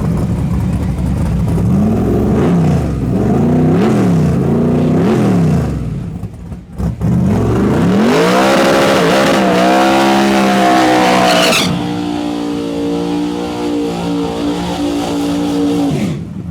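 Drag car engine revved up and down several times. It then climbs to high revs and is held there for about four seconds with a hiss like spinning tyres, as in a burnout, before settling to a steadier, lower running that drops off near the end.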